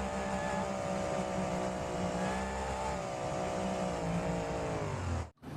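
A motor running at a steady pitch, sagging slightly near the end before it cuts off abruptly.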